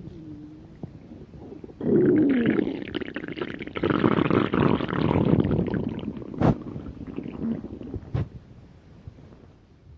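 A hungry person's stomach growling: long gurgling rumbles with a few short gliding squeaks, getting louder about two seconds in and fading away over the last few seconds. Two short sharp clicks come through near the end.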